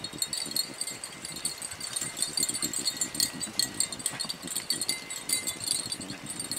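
Metal jingling from the beagles' collars, a rapid, irregular patter of small clinks as the pack moves and noses about, over a low rustle of dry leaves and brush underfoot.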